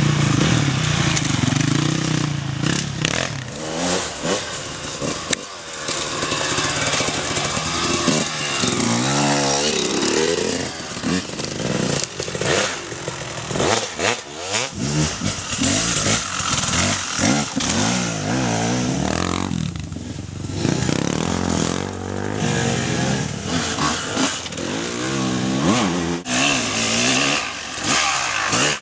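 Off-road dirt bike engines revving up and down again and again as the riders accelerate, ease off and accelerate again through the course.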